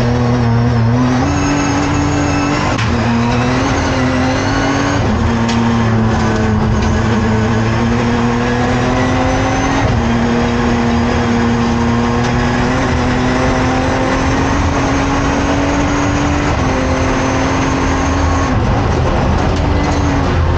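BMW 1M race car engine at full throttle, heard from inside the cockpit: the engine note climbs steadily through each gear, then dips sharply at each of several gear changes.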